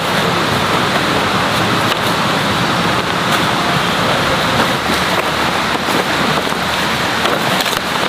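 A steady rushing noise of water, even and unbroken, with a few faint ticks over it.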